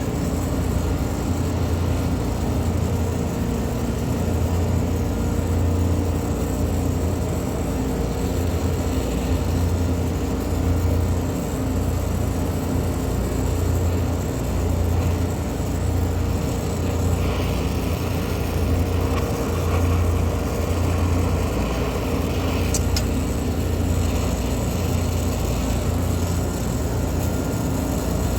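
Heavy machinery running steadily with a low drone that swells and fades every second or so, with a faint steady hum above it.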